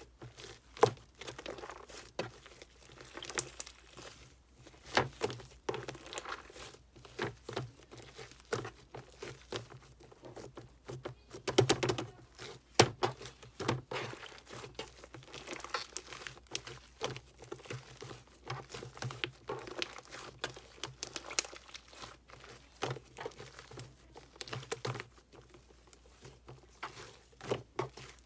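Clear slime being mixed and squished with shaving foam, giving off irregular sticky crackles and small popping clicks.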